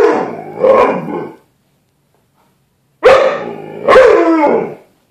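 Dog barking at its own reflection in a glass closet door: two barks at the start, then after a pause of about a second and a half two more, the last one drawn out and falling in pitch.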